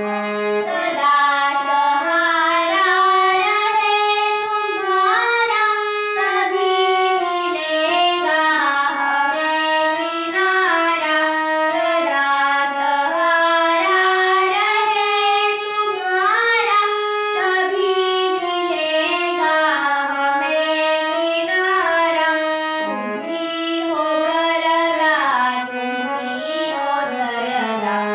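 A young girl singing a devotional prayer song in a smooth, gliding melody, with instrumental accompaniment.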